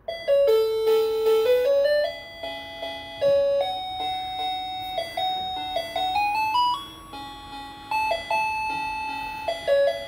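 Electronic musical doorbell chime playing a simple synthesized tune: single notes stepping up and down over a quieter lower part. It is one of the many different tunes the unit plays, a new one with each press of the button.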